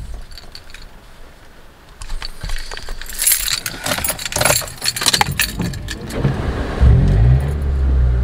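Car keys jangling and clicking as the key goes into a Toyota's ignition, then about seven seconds in the car is switched on and a loud low sound sets in.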